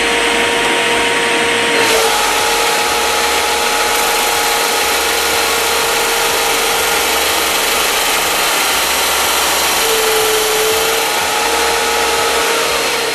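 SIP 01943 belt and disc sander running under its 1 hp motor, a steady hum with a dense abrasive hiss that grows harsher about two seconds in.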